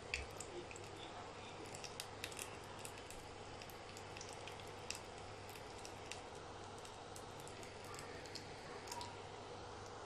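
Jaggery-sweetened wheat-and-semolina dough pieces deep-frying in hot oil: a faint, steady sizzle with scattered small pops and ticks.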